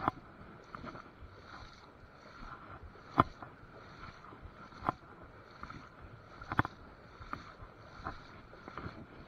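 Shallow river water moving and splashing around a wading angler. Several sharp knocks stand out: one right at the start, the loudest about three seconds in, then others near five and six and a half seconds.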